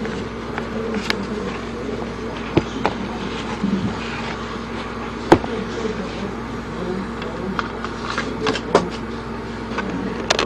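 Steady mechanical hum, with a few sharp taps and clicks from hands handling canvas sneakers and an egg.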